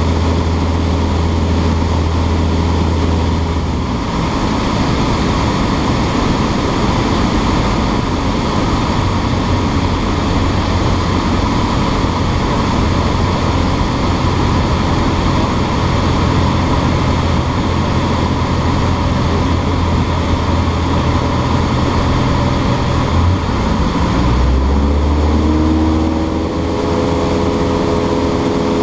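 Cessna 152's four-cylinder Lycoming engine and two-blade propeller droning loudly inside the cockpit in flight. About three-quarters of the way through, the engine note rises in pitch and settles higher as the power changes.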